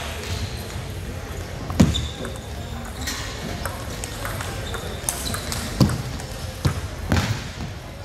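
Sharp knocks of a table tennis ball off bat and table: a loud one about two seconds in, then three more in quicker succession near the end, over a steady murmur of voices in a large hall.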